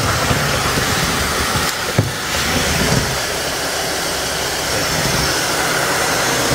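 Miele Triflex HX2 Cat & Dog cordless stick vacuum running steadily while vacuuming the floor, with a brief knock about two seconds in.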